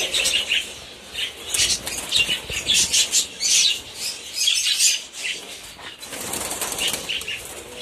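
A flock of budgerigars flapping their wings in flight, with high chirping among the flurries of wingbeats.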